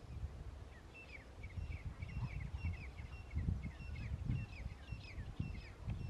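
Grey francolins calling: a quick run of short, high, downward-sliding notes, two or three a second, beginning about a second in. A low, uneven rumble runs underneath.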